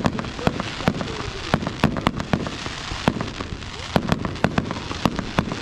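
Fireworks going off close by: a rapid, irregular string of sharp bangs and pops, several a second, over a continuous crackle.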